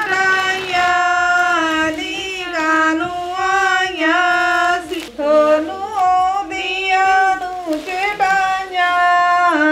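A single high female voice singing a Punjabi shagun (wedding) song, holding long notes that slide and bend between pitches, with only short breaks between phrases.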